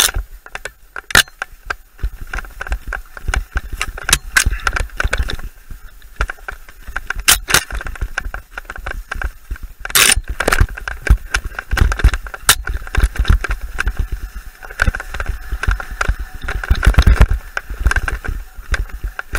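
Mountain bike ridden fast over a rough dirt trail: tyres rumbling on the ground, chain and frame rattling, and sharp knocks as the bike hits bumps, several of them loud, with a heavy low rumble on the microphone.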